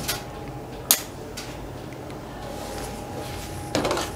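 Handling sounds of an ultrasound gel bottle and transducer probe: one sharp click about a second in and a brief rustle near the end, over a steady low hum.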